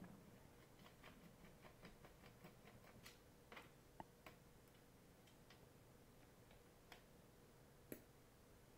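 Faint, irregular small clicks of a screwdriver turning a screw out of a plastic router case, with a few sharper ticks among them.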